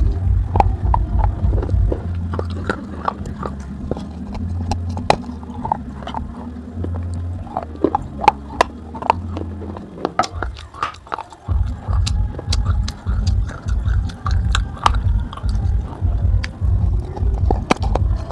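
Baked clay piggy bank being bitten and chewed: many sharp crunches and cracks as chunks of dry clay break between the teeth. A low, pulsing music beat runs underneath and drops out briefly a little after halfway.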